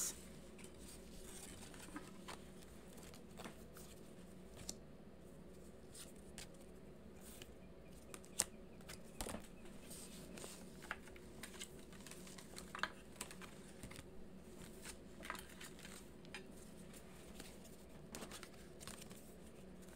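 Tarot cards being gathered up and shuffled by hand: scattered soft clicks and rustles, irregular and faint, over a steady low room hum.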